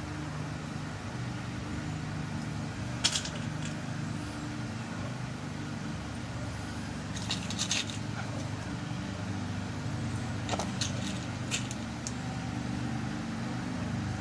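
Small metallic clicks of new pins being dropped into a pin-tumbler lock cylinder as it is loaded for rekeying: one about three seconds in, a couple near the middle and a few more later, over a steady low hum.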